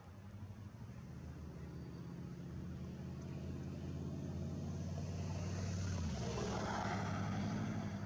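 A motor vehicle passing by: a low engine hum grows steadily louder, peaks with a rush of noise about six to seven seconds in, then begins to fade.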